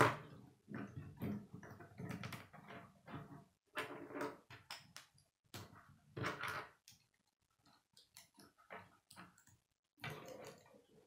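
Plastic K'nex rods and connectors clicking, snapping and rattling as they are pushed together and handled, an uneven run of clicks and rustles with a sharp snap at the very start.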